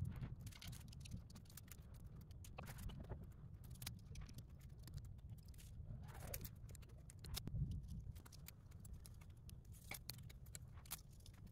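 Faint, scattered clicks and rustles of a bundle of insulated wires with plastic-sleeved crimp connectors being sorted and fitted together, over a low steady background rumble.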